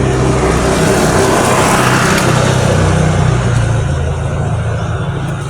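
Motor vehicle engine running steadily, with a rush of passing traffic that swells and fades about two seconds in.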